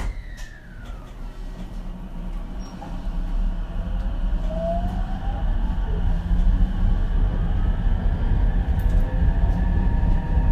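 Ichibata 7000 series electric railcar heard from inside the car as it pulls away and accelerates. The electric traction motors give a whine that rises in pitch over a low running rumble, which grows steadily louder as speed builds.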